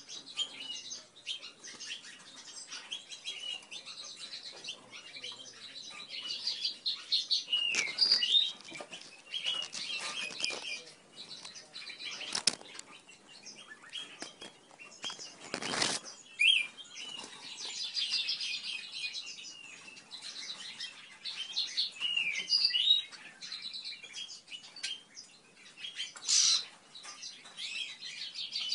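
Bramblings chirping: many short, high chirps in quick runs. There are two brief thumps, about twelve and sixteen seconds in.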